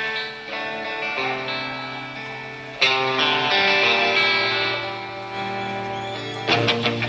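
Live rock band music led by a Fender Stratocaster electric guitar. Chords are struck and left to ring out, with a new loud chord about three seconds in. The band's rhythmic playing comes back in near the end.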